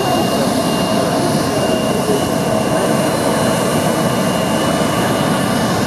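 Bombardier CRJ900 regional jet's two rear-mounted turbofan engines running at taxi power: a steady rush of engine noise with a steady whine held over it.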